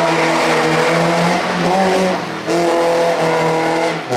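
Rally car engine held at high revs under hard driving, with short breaks in the note about one and a half and two and a half seconds in, and a gear change near the end.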